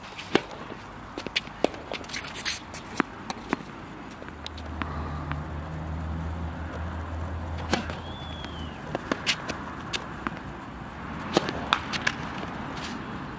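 Tennis rally on a hard court: sharp pops of racket strings striking the ball, near and far, with ball bounces and shoe scuffs and footsteps between them. A low steady hum comes in for a few seconds in the middle.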